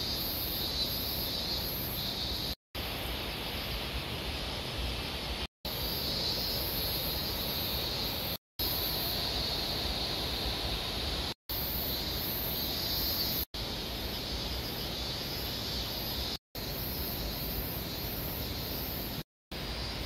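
Insects chirring in two high-pitched bands that swell and fade about once a second, over a steady outdoor hiss. The sound cuts out briefly about every three seconds where short clips are joined.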